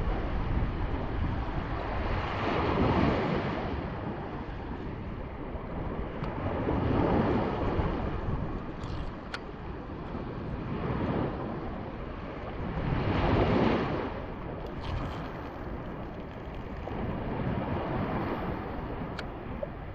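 Shallow sea water washing and lapping in slow surges about every four seconds, with wind on the microphone. A couple of faint ticks come about halfway through and near the end.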